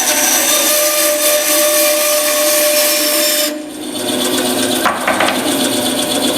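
A power tool cutting through wood, separating turned wooden plugs: steady motor whine with the hiss of the cut, which drops away briefly a little past halfway and then resumes with a few short scrapes.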